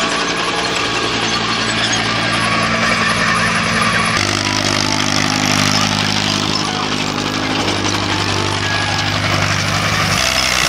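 Vintage Fiat crawler tractor's diesel engine running steadily under load while pulling a plough. The engine note changes about four seconds in.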